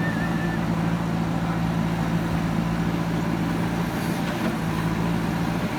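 Heavy earthmoving machine's engine running steadily under work, a constant low drone without change in pitch.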